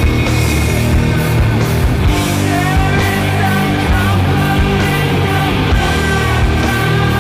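Loud rock music with a steady beat of drum hits.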